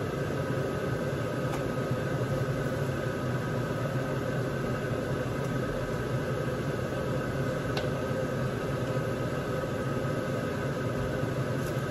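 Steady machine hum with an even rushing noise, as of a small fan motor running, with a few faint clicks.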